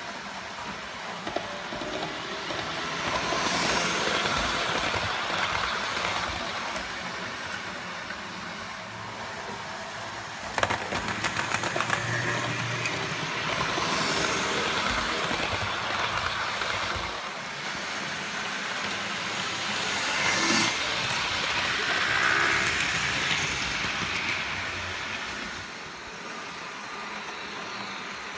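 Model electric trains running on the track, a whirring, rattling run of motor and wheels that grows louder and fades as trains pass close by, several times over, with a brief run of clicks about ten seconds in.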